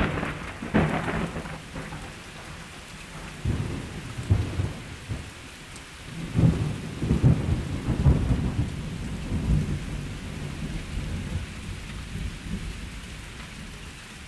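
Thunderstorm: steady rain with several rolls of thunder, fading out near the end.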